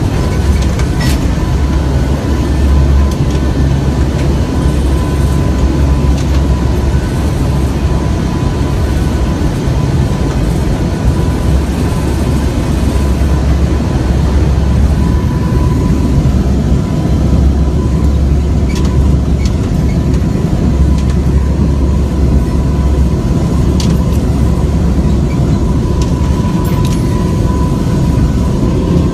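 Steady, loud rumble of an aircraft in flight heard from inside the cabin, with a thin steady high tone and a few faint clicks.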